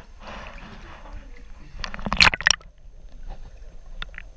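Water sloshing and splashing as a person moves through a cave river, with a short, loud burst of splashing about two seconds in.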